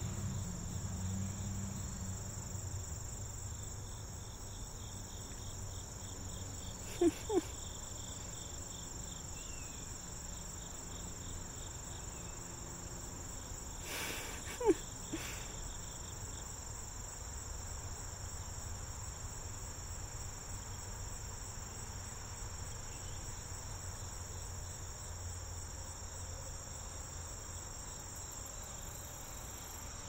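A steady, high-pitched chorus of insects, with a low rumble beneath. Two short, sharp squeaks come close together about seven seconds in and one more near the middle; these are the loudest sounds.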